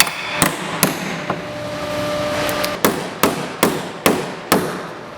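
Household hammer striking flathead screws in the bottom of a wheelbarrow tub to flatten them in. The blows come in two quick runs, four and then five, about two a second, with a pause of a second and a half between.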